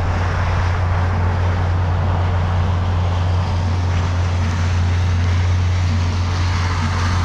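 Diesel engine of a 110-horsepower E-taen farm truck running steadily: an even low drone with a broad rushing noise over it.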